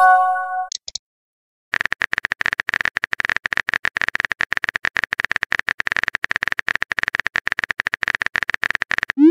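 Texting-app sound effects: a short multi-tone chime, a brief pause, then a long run of rapid keyboard clicks as a message is typed out, ending in a quick rising swoosh as the message is sent.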